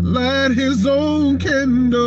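A man singing over instrumental accompaniment, with a sustained low bass tone beneath the voice.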